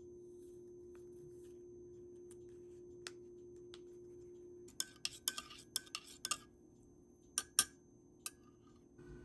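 Metal spoon stirring a green powdered drink in a ceramic mug, clinking against the sides in a quick run of ringing taps about halfway through and a few more near the end. Before the stirring only a faint steady hum is heard.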